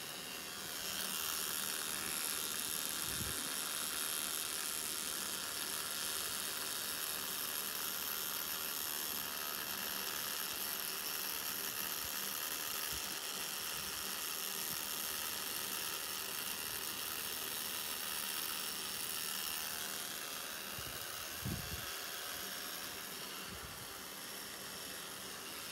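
Pen-style rotary tattoo machine running steadily as it lines a tattoo in black ink, a constant high-pitched whir that starts about a second in and eases off slightly near the end.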